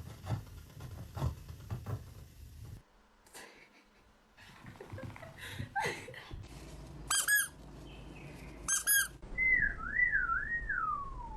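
Rustling and light clicks, then two short high-pitched squeaks, then a warbling whistle that slides downward in pitch near the end.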